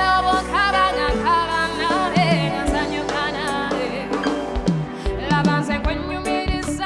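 Live band music: a drum kit and steady bass under a lead melody whose notes bend and slide.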